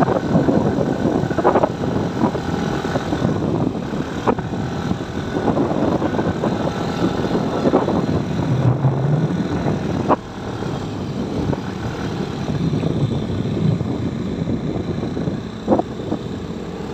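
Vehicle engine running steadily under wind and road noise while travelling along a rough concrete road, with a few sharp knocks. The engine pitch rises briefly about nine seconds in.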